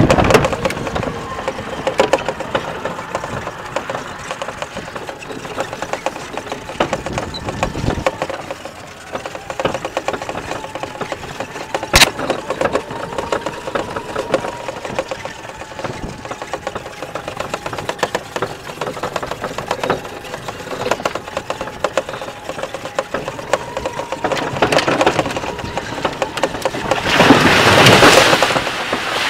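Battery-electric golf cart driving: a faint steady motor whine under continual rattling and clicking from the cart, with one sharp click about twelve seconds in and a louder rushing noise near the end.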